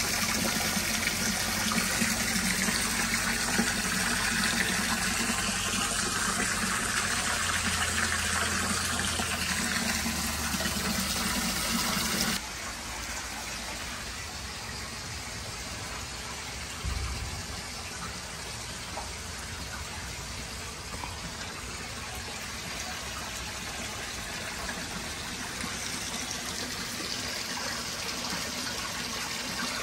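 Garden hose spraying water into a pond liner to fill it, splashing into shallow water with a low hum underneath. About 12 seconds in, the sound cuts to a quieter, steady stream pouring into deeper water.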